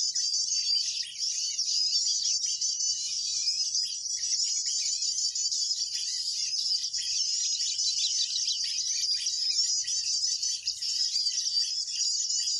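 Dense, continuous high twittering and chirping of small songbirds, many quick overlapping notes with no pause: a bird-luring call used to draw in the mantenan (pied bushchat).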